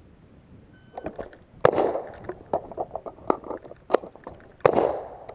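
A short electronic beep about a second in, then a string of sharp rifle shots from an HK MR556 5.56 mm semi-automatic rifle, the two loudest about two seconds and five seconds in, each with a short echo.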